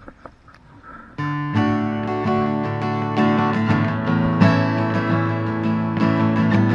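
Background music of acoustic guitar strumming, cutting in sharply about a second in. Before it there are a few faint splashes of water.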